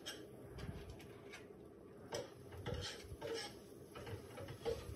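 Spatula scraping and tapping on a pan as butter is spread across it: several faint short strokes, spaced roughly half a second to a second apart.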